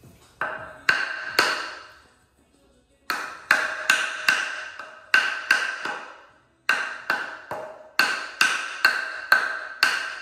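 Hammer blows on a block of wood braced against the crankshaft pulley of a Toyota 4A-GE engine, driving the stuck pulley off the crank without a puller. The strikes come in quick runs of three to eight, about two or three a second, each with a short metallic ring.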